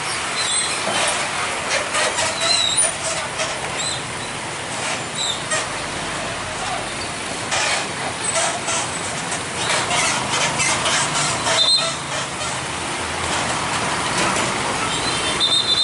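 Heavy trucks, motorcycles and cars rolling slowly over a railway level crossing: engine noise and tyre noise, with repeated knocks as wheels cross the rails and short high squeals, like brakes.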